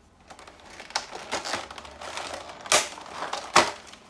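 Thin clear plastic blister packaging tray being handled and flexed, crinkling and crackling irregularly, with two sharp loud cracks in the second half.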